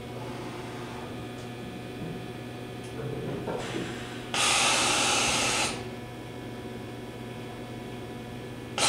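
Bridgeport Torq-Cut 22 vertical machining center running an automatic tool change. A steady machine hum is broken about four seconds in by a loud hiss of compressed air lasting over a second, and a second air hiss starts right at the end.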